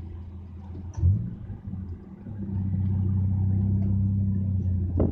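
1998 Mitsubishi Eclipse's engine droning steadily while driving, heard from inside the cabin. There is a thump about a second in, then a brief dip before the drone comes back louder and steady.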